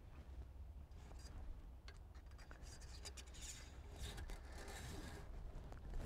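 Faint rubbing and scratching of a cloth shop rag wiping around a skid steer engine's dipstick and dipstick tube, with a few light ticks, over a low steady hum.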